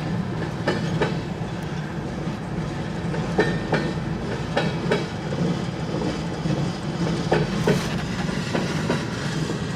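CN freight train's cars rolling past, with steady rumbling and the wheels clacking in irregular knocks over the rail joints.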